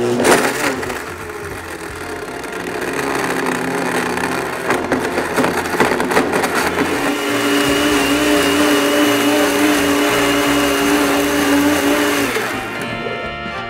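Blendtec blender motor running at high speed, chopping half a rotisserie chicken in 12 oz of Coke; it starts with a rough clatter, steadies into an even, slightly higher whine about halfway through as the mix turns smooth, and stops about a second before the end.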